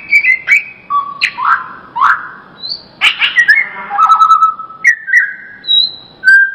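Cucak ijo (greater green leafbird) singing loudly: a rapid, varied run of whistled notes sliding up and down, mixed with sharp clicks.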